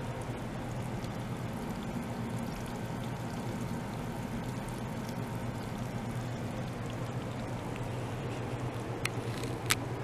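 Small liquid-circulation pump running, water flowing through tubing into an ultrasonic bath tank, a steady low hum under the sound of the water. Two sharp clicks near the end, the second louder.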